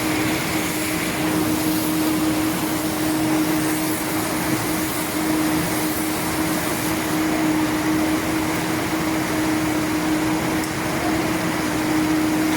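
Silage baling and film-wrapping machine running steadily: an even mechanical noise with a constant hum.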